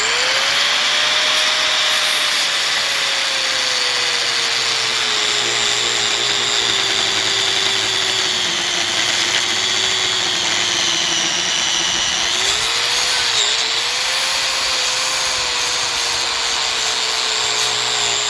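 Hand-held power tool cutting into a plastic faucet filter cartridge, its motor running steadily with a high whine. The pitch sags slowly as it bites in, then picks up and wavers about twelve seconds in before settling again.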